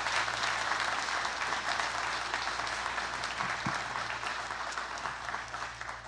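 Audience applauding, many hands clapping at once, dying away near the end.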